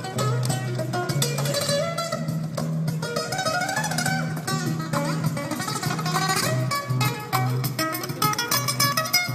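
Background music: a fast plucked-guitar piece with rapid strums.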